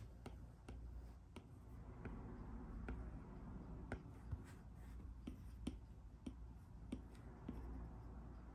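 Apple Pencil tip tapping and writing on an iPad's glass screen: faint, irregular sharp taps, about one or two a second, with light scratching between them.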